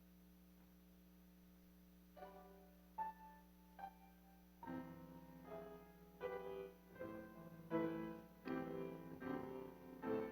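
Piano playing a hymn introduction: three single notes about two seconds in, then fuller chords from about halfway, over a steady low electrical hum.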